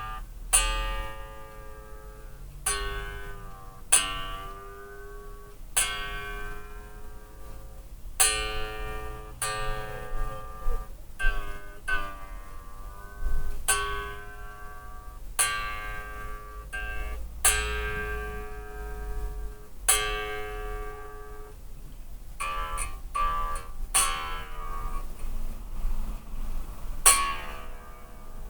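Strings of an unplugged electric bass plucked one note after another, a new pluck every second or two, each note ringing and fading while it is tuned by ear. The freshly fitted strings are not yet holding their pitch.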